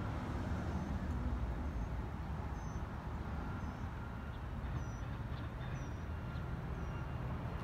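Diesel engine of a 2005 Peterbilt 357 dump truck idling steadily, a low, even rumble.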